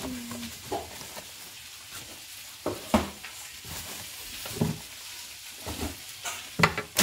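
Household items being shifted about on a kitchen cupboard shelf: plastic wrapping crinkles over a steady hiss, with a few knocks as things are set down, the loudest about three seconds in and a cluster near the end.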